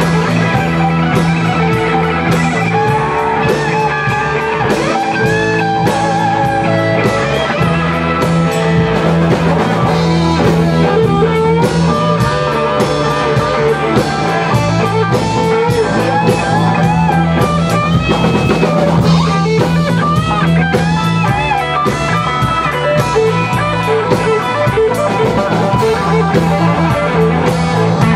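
Rock band playing live: electric guitars over a drum kit with steady cymbal and drum strikes, and a lead guitar line of bent notes.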